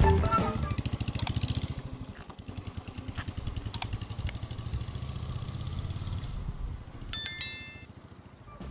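Royal Enfield single-cylinder motorcycle riding away, its pulsing exhaust beat loud at first and fading over the first couple of seconds, then steady and quieter. A short bright chime sounds about seven seconds in.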